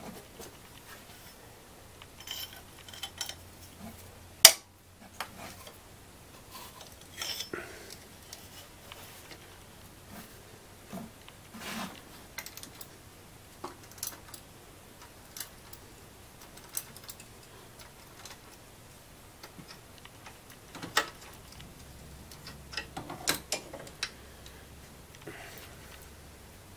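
Socket wrench and 12 mm deep socket working a bolt on a car engine: scattered metallic clicks and taps as the tool is fitted and turned, with one sharp click about four and a half seconds in and a quick run of clicks near the end.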